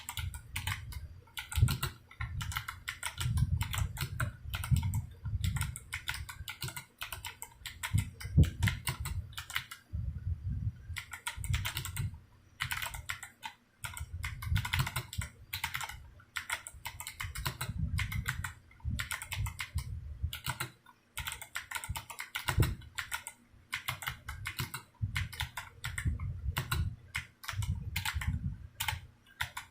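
Fast typing on a DROP CTRL mechanical keyboard with Kailh Box Jade clicky switches and PBT keycaps: a dense run of sharp clicks, each with a low clack, pausing briefly a few times.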